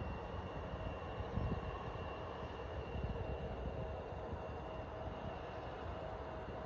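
Distant jet airliner's engines running at a steady whine while the plane lines up at the far end of the runway. Two steady tones sit over an even rush, with an uneven low rumble underneath.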